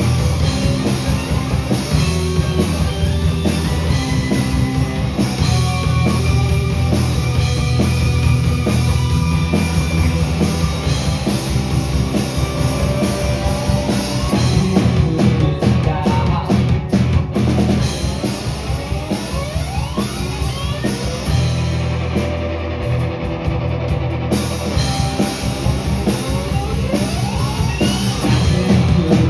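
Live rock band playing an instrumental passage: drum kit, electric guitar and bass together. The drums and cymbals drop out for a couple of seconds about three-quarters of the way through, then come back in.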